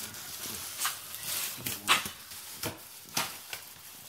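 A small dog nosing and pawing at a cardboard box: scattered scrapes, rustles and clicks.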